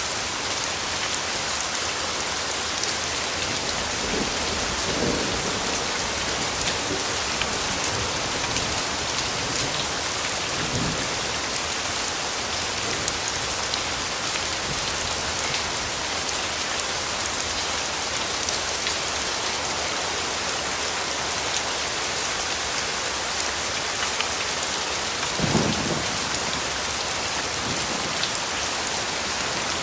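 Steady rain falling in a dense, even hiss. There are a few brief low rumbles, the strongest about 25 seconds in.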